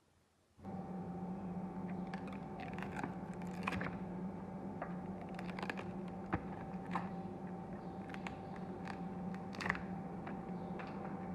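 Paper and tape mold being peeled and torn off a cast green resin knife handle: irregular crackling and sharp clicks. Under it runs a steady hum with a faint higher whine, starting suddenly about half a second in.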